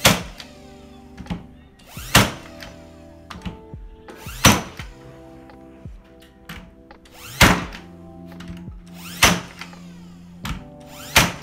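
Craftsman V20 16-gauge cordless finish nailer firing nails into wood: six sharp shots, about two to three seconds apart.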